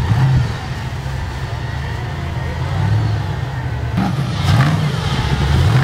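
Off-road vehicle's engine running and revving up and down, with a few knocks about four seconds in.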